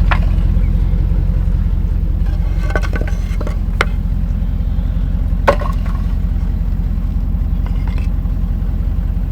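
Heavy truck engine running steadily with a deep rumble during a winch pull, with a few sharp metallic knocks and clinks, around three to four seconds in and again about five and a half seconds in.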